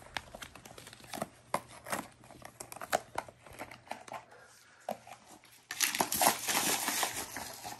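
Plastic wrapping of an L.O.L. Surprise ball crinkling and tearing as it is unwrapped by hand: a run of small crackles that gets louder and denser for a couple of seconds near the end.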